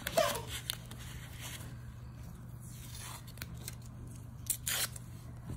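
Blue painter's tape being torn and pressed onto a paper plate: scattered short crackles and rips, the loudest at the start and a little before the end.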